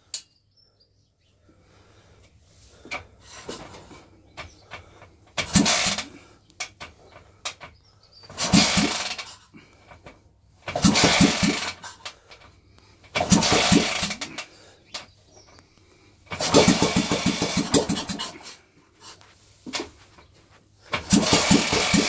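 Old AJS motorcycle engine being started, catching and firing in quick beats for a second or two at a time, then dying out, about six times over.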